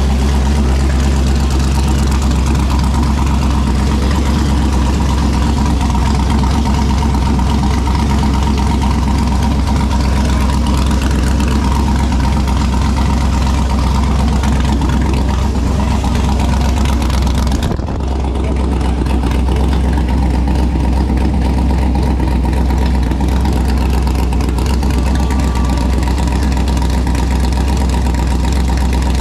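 Texas Speed 416 ci LS3 V8 running at a steady idle, with a brief dip about eighteen seconds in before it carries on.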